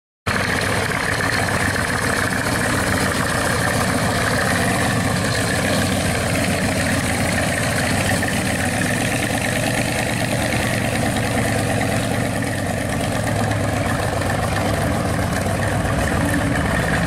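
Supercharged engine of a 1967 Dodge Dart Swinger running steadily near idle as the car rolls slowly along, without hard revving.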